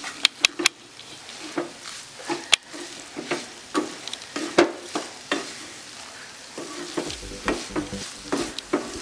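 Spatula stirring thick masala-coated squid rings in a metal kadai over a light sizzle: repeated scraping strokes, with a few sharp taps against the pan in the first second and one more a couple of seconds later.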